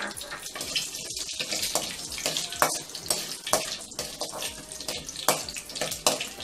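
Cumin, mustard seeds and urad dal sizzling in hot oil in an aluminium kadai, a steady hiss broken by many sharp pops and clicks, while a metal spatula stirs them around the pan.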